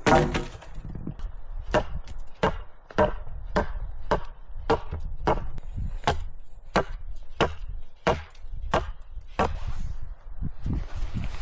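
Wood being chopped with a blade: a steady run of sharp blows, about three every two seconds, while wood is cut for a shelter frame.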